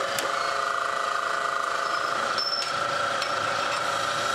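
Switch click as a bench drill press is turned on, then its electric motor runs with a steady whine.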